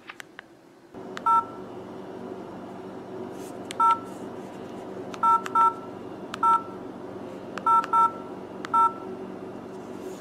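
Keypad tones of an LG 440G flip phone: about eight short, identical two-tone beeps at irregular intervals as its keys are pressed to navigate the menus, over a steady low hum that starts about a second in.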